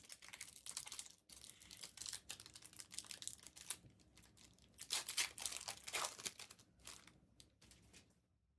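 Crinkling and tearing of a trading-card pack wrapper being handled and ripped open, a dense run of crackles that is loudest about five to six seconds in and fades near the end.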